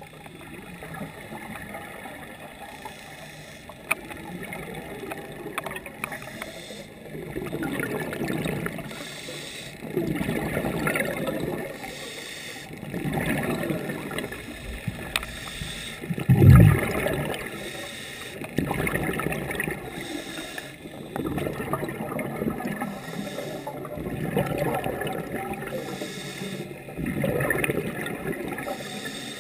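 Scuba diver breathing through a regulator underwater: bursts of exhaled bubbles about every two to three seconds, the loudest one about halfway through, over a steady underwater murmur.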